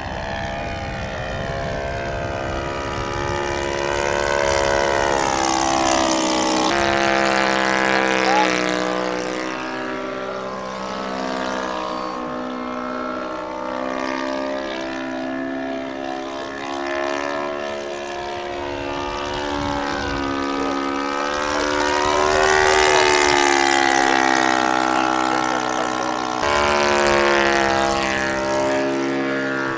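RC Spacewalker model floatplane's engine and propeller droning in flight, the pitch sliding up and down as it manoeuvres and passes. The pitch drops suddenly about seven seconds in, as the throttle is pulled back, and jumps up again near the end as it is opened.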